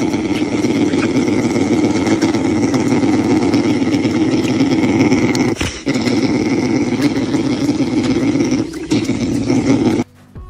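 Brown bear cub giving a steady, motor-like hum as it sucks on a man's hand: the contented suckling hum of a bear cub. It breaks off briefly about five and a half seconds in and again near nine seconds, and stops about ten seconds in.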